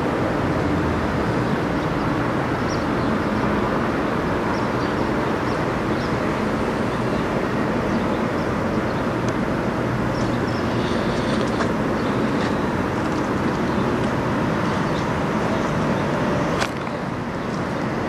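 Freightliner Classic XL semi tractor's diesel engine idling steadily at close range.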